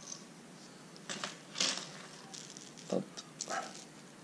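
Hard plastic fishing lures with metal treble hooks being handled and set down on a table: a few light clicks and rattles.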